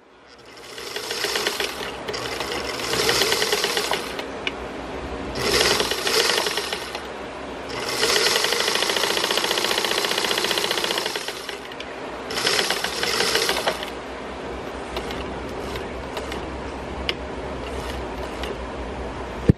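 Eversew Universal sewing machine, a Japanese-made Singer 15 clone, stitching fabric under its electric motor: a fast, even chatter of needle and mechanism that speeds up and eases off several times, with its longest fast run near the middle.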